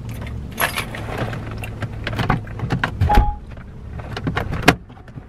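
Rustling, clicks and knocks inside a car over the low hum of the idling engine, with a heavy thump about three seconds in, a short beep just after it, and a sharp click near the end.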